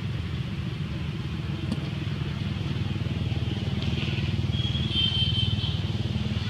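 A motor vehicle engine running steadily, a low pulsing rumble. About five seconds in there is a short, high, thin squeal lasting about a second.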